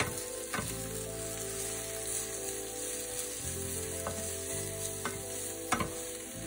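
Sliced onions sizzling in hot oil in a frying pan while being stirred with a wooden spatula. The spatula knocks against the pan a few times, loudest near the end.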